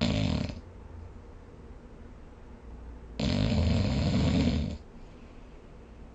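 A sleeping person snoring: a short snore right at the start, then a longer snore about three seconds in that lasts about a second and a half.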